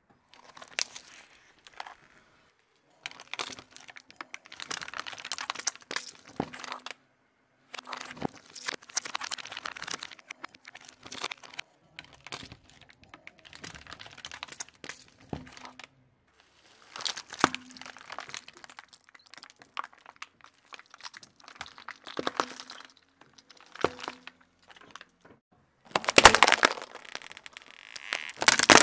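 A car tyre rolling over and crushing a series of objects (plastic toys, aluminium soda cans, gummy candy, slime), heard as crunching and crackling in separate bursts broken by sudden cuts. The loudest crunch comes near the end.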